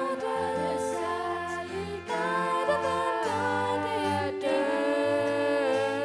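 A group of young girls singing a song together, holding long notes, with a cello playing low notes underneath.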